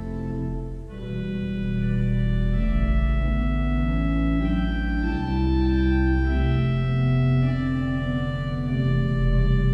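Organ playing slow, held chords over deep bass notes, the chords changing every second or two after a brief dip about a second in.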